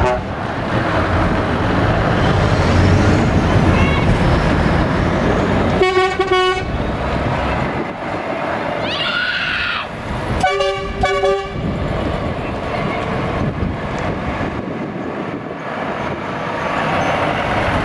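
Heavy lorries' diesel engines running as they pull past, with two blasts of a truck horn about four seconds apart, each lasting about a second, and a brief rising whistle between them.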